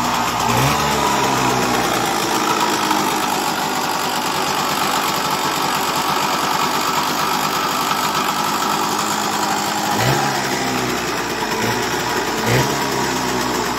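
Suzuki B100's two-stroke single-cylinder engine running steadily on the stand, revved briefly three times: just after the start, about ten seconds in and near the end.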